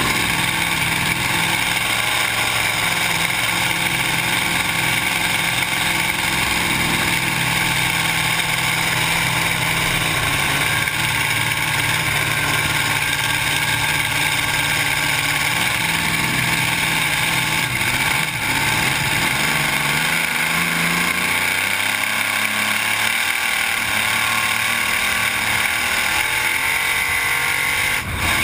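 Supercharged alcohol-burning engine of a flat-bottom K drag boat running steadily under way. Its pitch drops about two-thirds of the way through.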